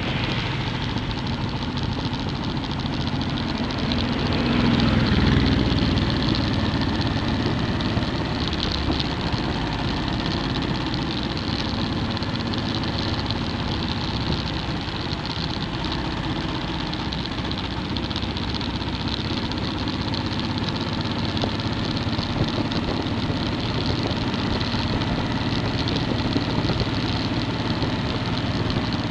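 Motorcycle engine running at cruising speed with heavy wind rush across the bike-mounted microphone. The sound swells louder about five seconds in, then settles back to a steady drone.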